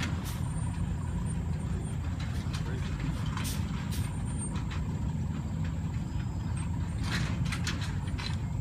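Engine of a 5-ton six-wheel-drive truck running steadily while it drives off-road, with scattered knocks and rattles, a cluster of them near the end.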